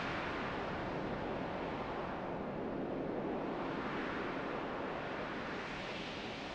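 Rushing, wind-like whoosh effect that swells and fades slowly a few times, with no tune or beat.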